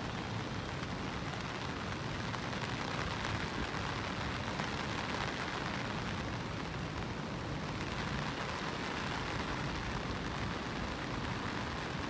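Steady rain falling: an even hiss with a low rumble beneath, unchanging throughout.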